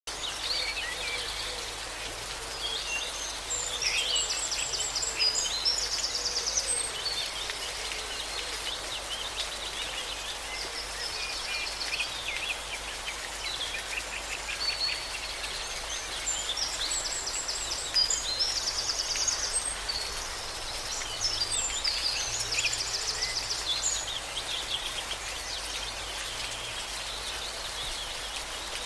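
Songbirds singing in repeated trills and chirps over the steady rush of a waterfall.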